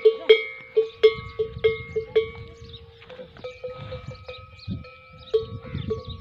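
A metal neck bell on a moving camel clanking: quick irregular strikes, about three a second at first, then slowing to an occasional clank about three seconds in, each strike ringing on briefly.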